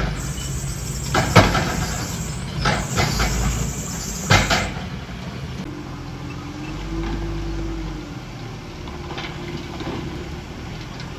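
Heavy diesel earthmoving machine running steadily, with several sharp clanks in the first four or five seconds and a faint whine around the middle.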